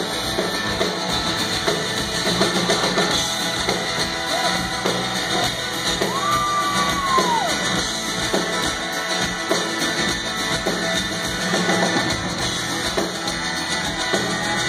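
Live rock band playing through a PA, heard from the crowd: drum kit and electric guitars with no singing. About six seconds in, one high note is held and then falls away.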